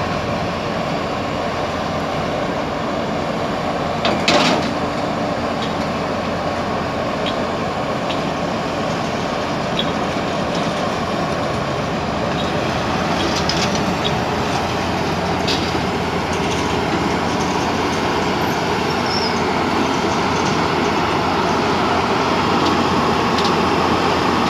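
Tata Hitachi excavator's diesel engine running steadily under load, with a single loud metallic clank about four seconds in. The engine grows a little louder toward the end.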